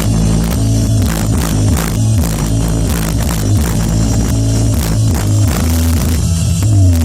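Music with a heavy bass line and a steady drum beat, played loud through a car audio system, with a falling pitch sweep near the end.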